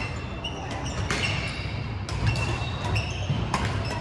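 Badminton rally: sharp racket strikes on the shuttlecock and short sneaker squeaks on the hardwood court, over the hum of a busy sports hall.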